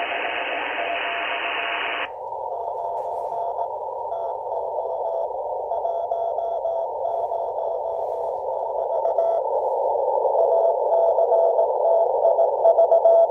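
Morse code (CW) signal on an Icom IC-R75 communications receiver: a steady tone keyed on and off in a bed of hiss. About two seconds in, the 500 Hz CW filter is switched in and the wide hiss suddenly narrows to a band around the tone, so much of the noise is gone and the Morse stands out.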